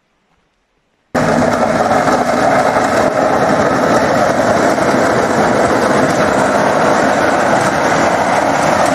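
Backhoe loader's diesel engine running steadily and loudly close by, cutting in abruptly about a second in after near silence.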